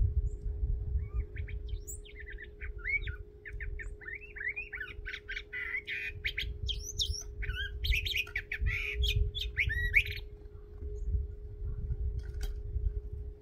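A thrasher singing a long run of quick, varied whistled phrases that stops about ten seconds in, over a steady low hum and rumble.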